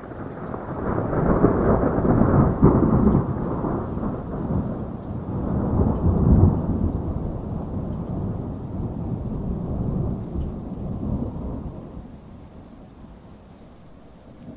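A long rolling rumble of thunder that swells in about a second and peaks twice, early and again around the middle, then dies away near the end. Steady rain goes on underneath.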